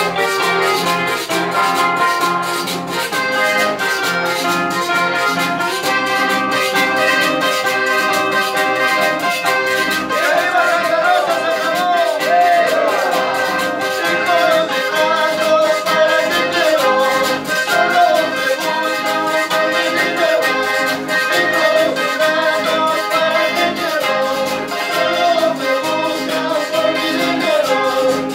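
Live Andean dance music: a piano accordion and two acoustic guitars with a metal güiro scraping a steady rhythm. A singing voice comes in about ten seconds in.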